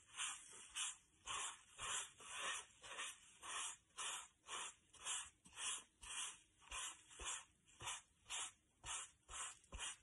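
Wet sponge scrubbing green watercolour over a wax-crayon drawing on paper, a soft swishing stroke about twice a second.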